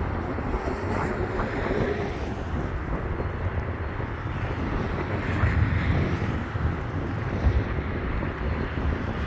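Freight train led by BNSF diesel locomotives rumbling steadily through track switches, with strong wind buffeting the microphone over it.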